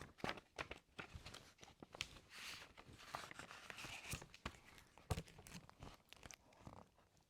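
Quiet rustling of paper with scattered light clicks and knocks: a picture book being handled and its page turned.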